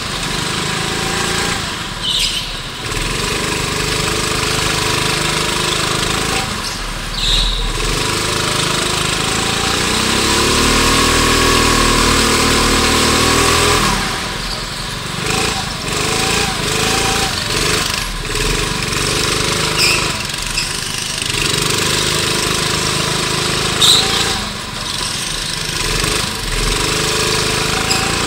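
Go-kart engine heard onboard, held at high revs and easing off for the corners every few seconds. About midway through, its pitch climbs steadily for a few seconds along a straight, then drops sharply as the driver lifts for the next turn.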